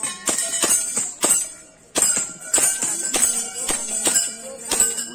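Gas blowback airsoft rifle firing a rapid string of shots at uneven spacing, roughly four a second, each a sharp snap.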